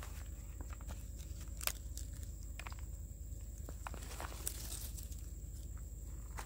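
Faint rustling and crunching of a pineapple plant's stiff leaves and potting soil as the plant is worked loose from its plastic pot, with a few sharp clicks scattered through.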